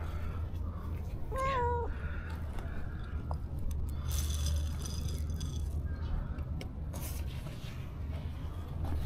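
A stray cat meows once, a short call about a second and a half in, with rustling and handling noise a few seconds later.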